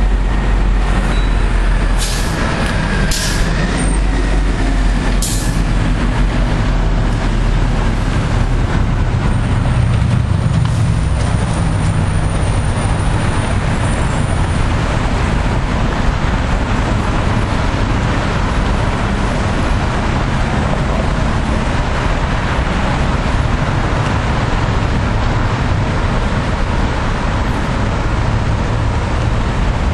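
City street traffic: steady engine and road noise with a heavy low rumble, and three short, sharp hisses in the first few seconds.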